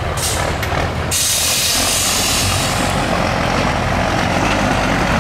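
Diesel engine of a 6x6 Mercedes-Benz trial truck running steadily as it crawls over rough rocky ground, with a loud hiss that starts suddenly about a second in and fades away by about three seconds.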